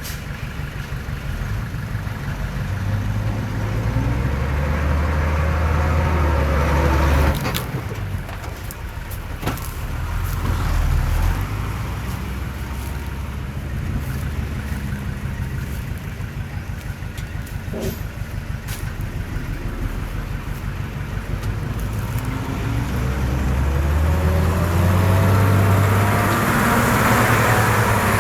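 Heavy diesel engine of earthmoving machinery running and revving up under load twice, easing off suddenly after the first surge, with a few sharp knocks in between.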